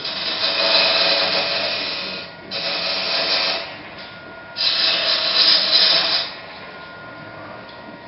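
A turning tool cutting a spinning wood blank on a Jet lathe: three hissing cuts, the last ending about six seconds in, with the lathe's faint steady whine between them and after.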